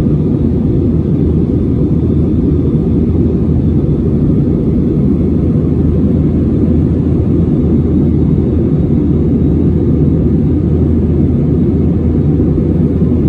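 Steady low rushing drone of jet engine and airflow noise inside the cabin of an Airbus A320-family airliner in flight, heard from a seat over the wing.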